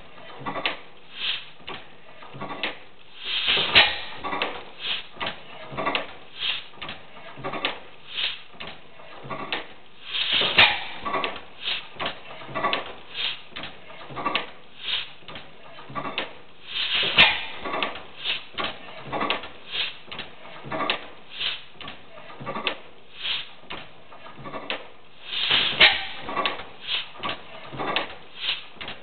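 15 hp Otto stationary gas engine running: even knocks about one and a half times a second, with a louder bang every seven to eight seconds, four in all.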